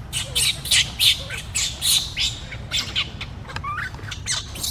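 Baby monkey giving a rapid string of short, shrill squeals, about a dozen in all, loudest in the first half.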